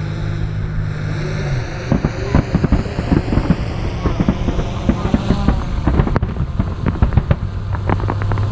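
Distant fireworks: a fast, irregular string of sharp bangs and crackles begins about two seconds in and keeps going. Before it, a steady low hum cuts off.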